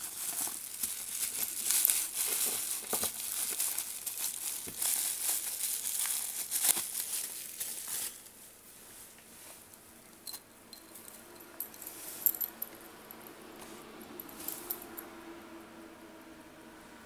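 Watch packaging being unwrapped: crinkling and rustling for about the first eight seconds, then quieter handling with a few light clicks.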